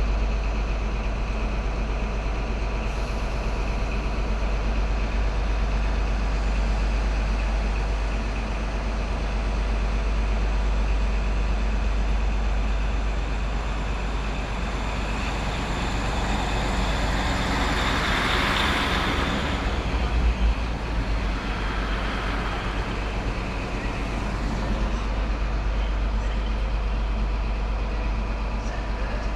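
East Midlands Trains Class 156 diesel multiple unit departing, its underfloor Cummins diesel engines running under power with steady engine and wheel noise. The noise swells as the cars pass close about two-thirds of the way in, with a couple of knocks at its peak, then eases as the train draws away.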